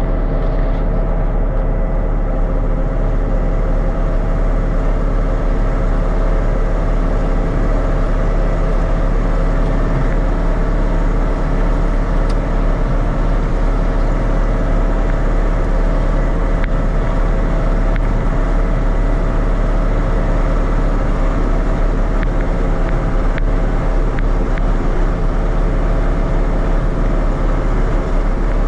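Tractor engine running at a steady, unchanging speed, loud and constant.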